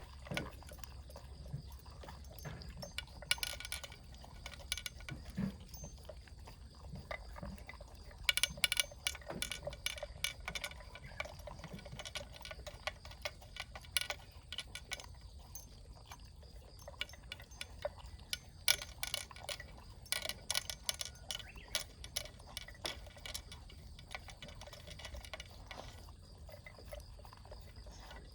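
A pet eating its breakfast from a bowl: irregular runs of small crunches and clinks, coming in bursts with short pauses between, over a faint steady low hum.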